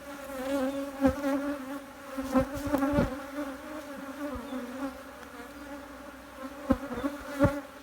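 Honeybees buzzing around an opened hive in a steady, wavering hum. Several sharp knocks fall in small clusters about a second in, around two and a half to three seconds, and near the end.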